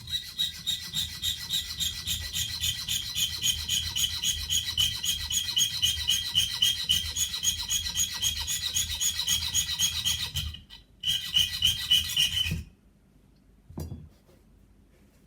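Junior hacksaw cutting through the end of a threaded bolt with quick, even back-and-forth strokes. The sawing breaks off briefly about ten seconds in, goes on for a moment more, then stops, with one short knock near the end.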